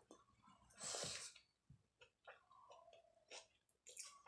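Faint chewing and wet mouth clicks from a mouthful of mustard-green saag, with a short burst of noise about a second in.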